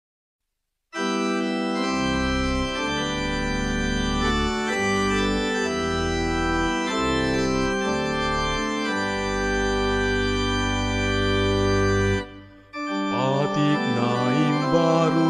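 Organ music playing slow, held chords over a moving bass line, starting about a second in after a moment of silence. Shortly before the end it breaks off briefly and resumes with a wavering melody over the chords.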